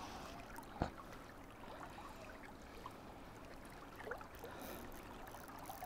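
Faint, steady flow of river water around a wading angler, with one sharp click about a second in.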